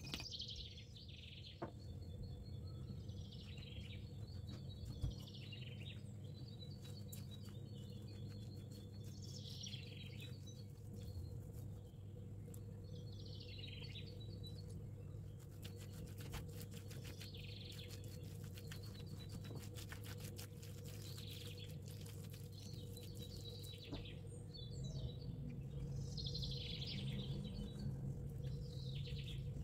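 Birds chirping, short falling calls repeated every two or three seconds, over a steady low hum, with scattered faint clicks in the middle stretch.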